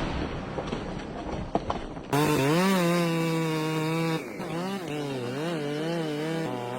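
A chainsaw engine running. For about the first two seconds there is a noisy crackling; then the engine's note comes in loud and steady and, from about halfway, its pitch wavers up and down as it works in the cut.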